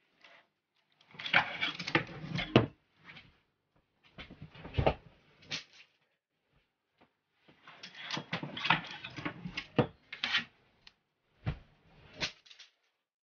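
Clothes being taken off hangers in a closet: hangers clacking and scraping on the rail with fabric rustling, in four bursts separated by short pauses.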